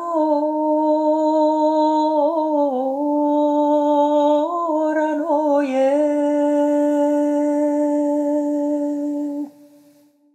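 A woman singing unaccompanied, a traditional Serbian lyric song: one long drawn-out note held on a single pitch, with short melodic turns about two and five seconds in. The note stops about nine and a half seconds in, leaving a short fading echo.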